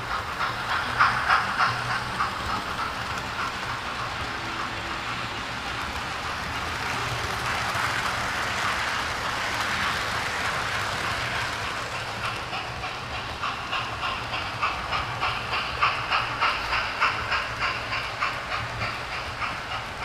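Model railway trains running past on the track: the wheels click rapidly and evenly over the rail joints, with a rushing whir that swells as a rake of Pullman coaches passes close by in the middle.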